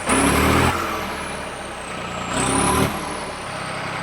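Tractor's add-on horns blown in two short blasts, the second about two and a half seconds in. During each blast a high whine rises, and after it the whine slowly falls away, as an electric horn compressor spins up and coasts down.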